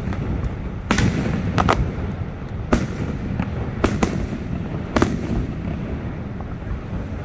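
Aerial firework shells bursting overhead: sharp bangs about once a second, some in quick pairs, over a steady low rumble.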